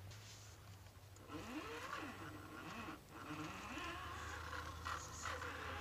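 Axial UMG10 RC rock crawler's electric motor and drivetrain whining faintly, the pitch rising and falling several times as the throttle is worked, with a short break about three seconds in.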